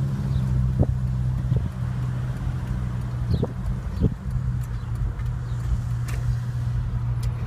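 Steady low drone of a car's engine and road noise heard from inside the cabin, with a few brief knocks.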